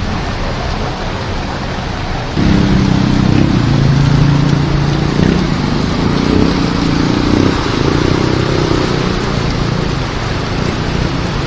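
Heavy rain hissing steadily, with a vehicle engine coming in suddenly about two seconds in, its hum shifting up and down in pitch, then easing back under the rain near the end.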